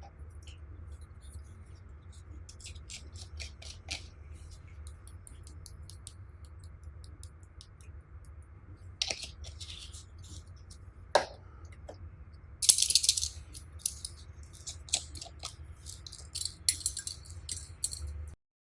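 Slime being pressed and mixed by hand: scattered sticky clicks and pops, with a short burst of dense crackling about halfway through, over a steady low hum.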